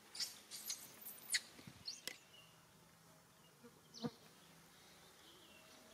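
A quick run of short, sharp crackles and clicks in the first two seconds, with one more about four seconds in, over a faint steady outdoor background.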